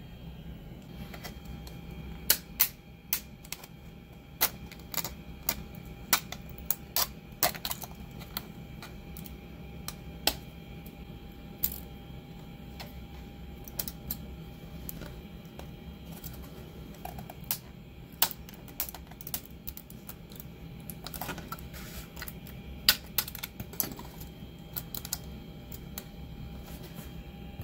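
Irregular sharp clicks and snaps as fingers handle a hard PLA 3D print and pick thin leftover support strands off it, heard over a steady low hum.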